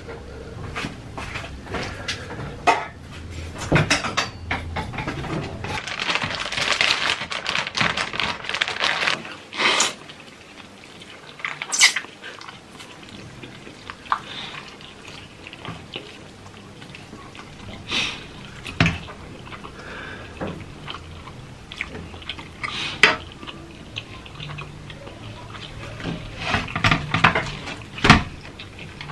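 Close-up eating sounds: instant noodles slurped and chewed, with a metal fork clicking and scraping against the pan in sharp knocks throughout.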